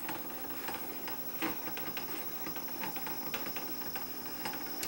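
Technics RS-676 cassette deck's capstan flywheel running with the deck turned on its side: a faint steady hum with light mechanical noise and a couple of soft clicks. The flywheel is noisy here probably because it is not meant to run on its side.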